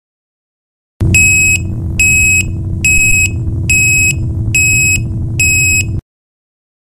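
DNI4002 24 V piezoelectric reversing (backup) alarm sounding its intermittent warning: six high-pitched beeps, a little more than one a second, over a low background rumble, starting and cutting off abruptly.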